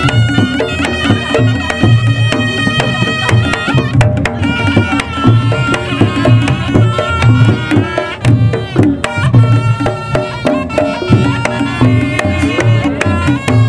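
Reog Ponorogo music: kendang hand drums beat a driving rhythm of deep strokes under the held, wavering melody of a reedy shawm (slompret), played loud.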